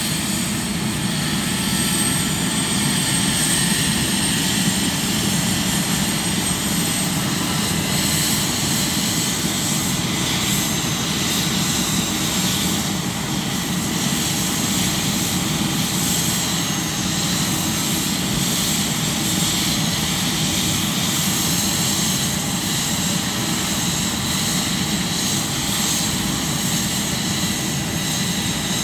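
Airbus H145 helicopter running on the ground with its main rotor turning, its twin Safran Arriel 2E turboshaft engines giving a steady high turbine whine over a low, even rotor drone.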